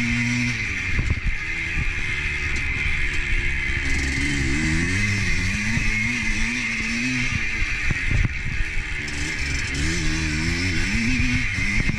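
Motor vehicle engine running under way, its pitch falling and rising several times as it slows and speeds up.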